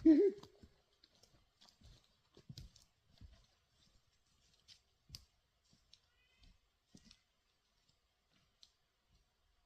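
A brief voice sound at the very start, then faint scattered clicks and light knocks of firewood pieces being picked up and handled. A short high chirp comes about six seconds in.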